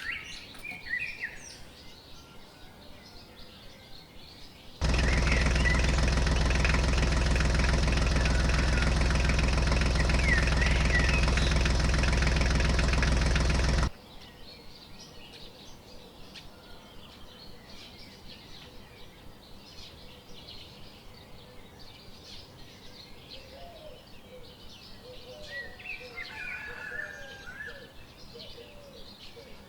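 A small electric motor running at a steady speed for about nine seconds, switching on and off abruptly. Birds chirp faintly in the background.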